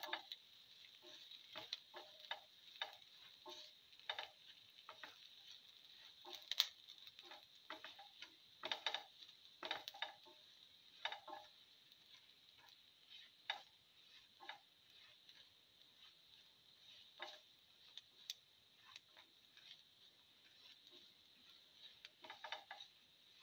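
Quiet sizzle of shallots, garlic and cumin seeds frying in a little oil in a pan, with scattered light clicks and taps, irregular and a few a second at most, as they are stirred with a spatula.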